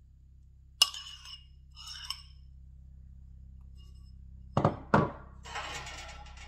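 A metal spoon clinks lightly against ceramic twice while spreading mashed avocado, then the ceramic bowl knocks down twice on the counter. Background music comes in about a second after.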